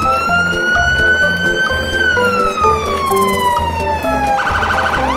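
A siren wailing: one tone that rises slowly, then falls over a couple of seconds, then switches to a fast warble near the end. Background music with a steady beat plays underneath.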